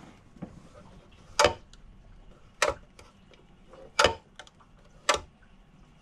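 Four sharp clicks, roughly one every second and a bit: an electrical switch for a boat's sump pump being clicked, with no pump motor starting.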